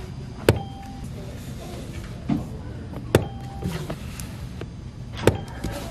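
Library self-checkout station: three sharp knocks about two and a half seconds apart, each followed by a short beep, over a low steady hum.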